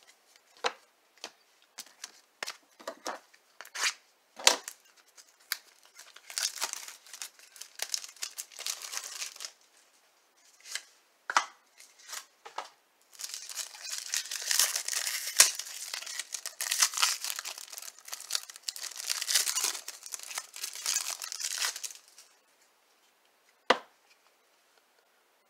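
A few light clicks of cards being handled, then a trading-card pack wrapper being crinkled and torn open, with a longer stretch of crinkling and tearing from about the middle until shortly before the end. One sharp click near the end.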